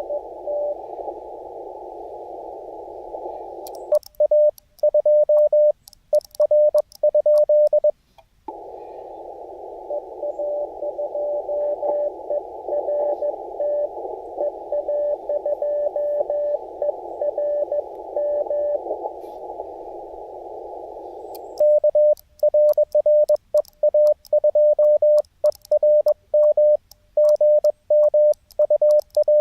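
Morse code on a QRP amateur radio transceiver, a single tone near 600 Hz. The operator's own sidetone is keyed loud and crisp in dots and dashes, with a sharp tick on each element, from about four to eight seconds in and again from about twenty-one seconds on. In between, fainter received CW signals sit in the band of hiss from the receiver's narrow filter.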